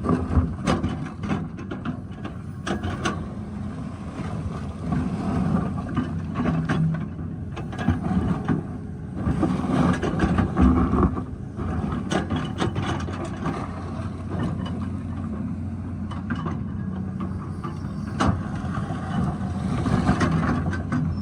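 Excavator engine running under working load, with scattered knocks and scrapes of the bucket against rock, most frequent about halfway through and again near the end.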